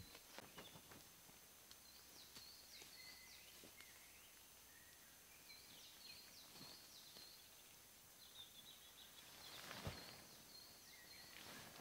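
Faint birdsong: short, repeated chirping phrases from small birds, with a few light rustles and one louder rustle or soft thump near the end.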